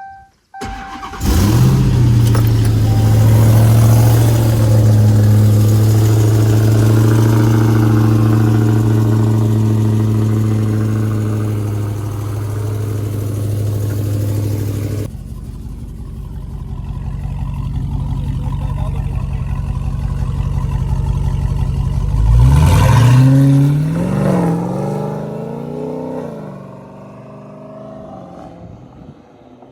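Dodge Hellcat's supercharged 6.2-litre Hemi V8, exhaled through catless mid pipes, cold-starting after sitting overnight: it cranks, fires with a loud flare and holds a steady high fast idle, which drops to a quieter idle about halfway through. About three quarters of the way in, one blip of the throttle revs it up and back down before it settles at idle.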